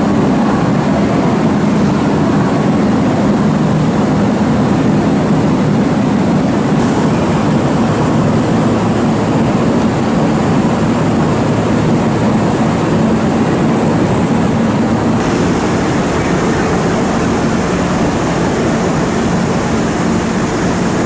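Steady low drone and hum of a Kintetsu 2013 series electric train standing at a station platform, its onboard equipment running. A higher hiss steps up about seven seconds in and again about fifteen seconds in.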